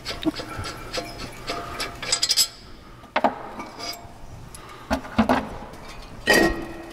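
Metal clinks, scraping and knocks of a disc brake rotor being worked loose and slid off the wheel hub, with sharper knocks about three, five and six seconds in, the last briefly ringing.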